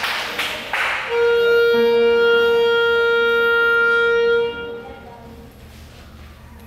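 A clarinet holds one long steady note for about three and a half seconds and then tapers off: a tuning note before the piece begins. Just before it, the tail of the applause dies away.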